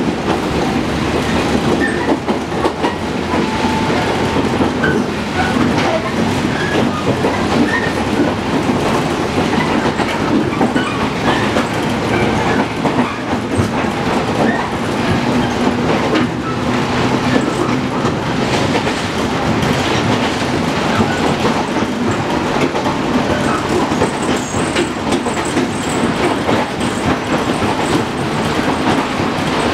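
Onboard running sound of a JR Kyushu 415 series 500-subseries electric multiple unit under way, heard inside the passenger car: a steady rumble of wheels on the rails with the clack of rail joints.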